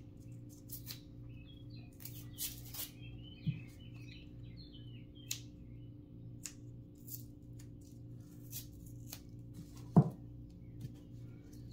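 Pennies clicking and clinking as they are handled, scattered light clicks with one loud clack about ten seconds in, over a steady low hum.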